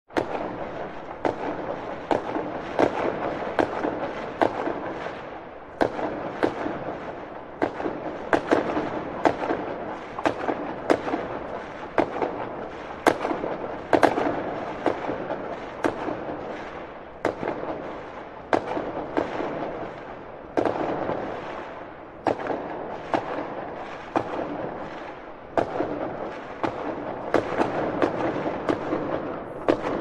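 Fireworks going off: a rapid stream of sharp bangs over continuous crackling, the volley swelling and easing every few seconds.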